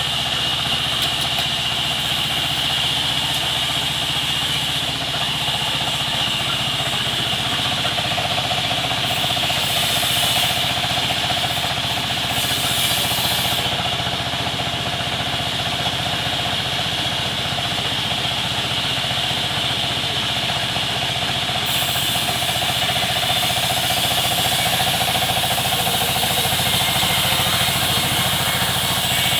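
Sawmill machinery running steadily: a constant mechanical drone with a steady high whine.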